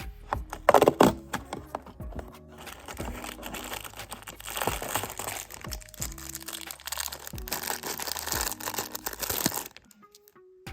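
Lego advent calendar packaging being opened by hand: continuous crinkling and tearing with sharp cracks about a second in, stopping shortly before the end. Soft background music plays underneath.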